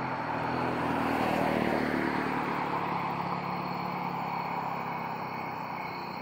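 A car passing by, its engine and road noise loudest a second or two in and then fading to a low steady hum. Under it runs a faint, steady, high-pitched cricket song.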